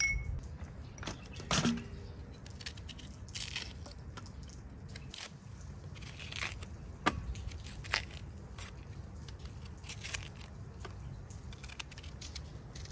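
A light clink at the start, then a knife cutting through a raw onion held in the hand: scattered crisp crunches and scrapes, some a second or two apart.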